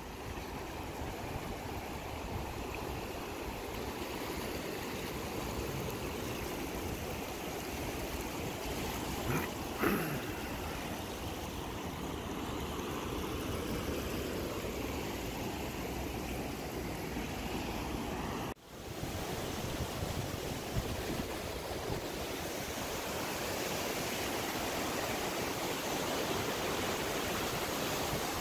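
Rushing whitewater in a man-made slalom channel: a steady rush of fast water pouring through the concrete course. A short pitched sound stands out about ten seconds in, and the rush briefly drops out about two-thirds of the way through.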